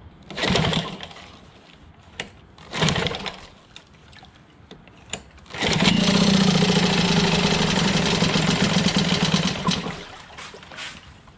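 Clinton 3.5 hp two-stroke outboard motor being pull-started with its recoil starter: two pulls that don't catch, then on a third pull about six seconds in it fires and runs steadily with a fast, buzzy beat for about four seconds before winding down near the end.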